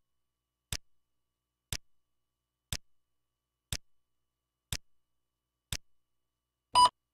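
Countdown leader on a broadcast commercial slate: six short clicks, one a second, as the numbers count down, then a brief, louder beep on the two (the two-pop) near the end.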